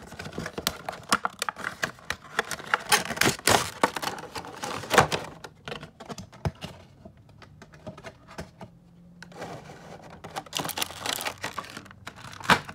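A Funko Pop vinyl figure is unboxed: the cardboard window box and its clear plastic insert rustle, crinkle and click as they are handled. The clicks come in dense runs, with a quieter stretch in the middle.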